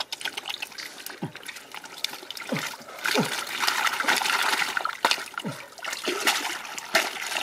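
Muddy water splashing and trickling as wet mud is scooped and sifted by hand in a basket, busiest about halfway through. A short call that falls in pitch repeats several times under it.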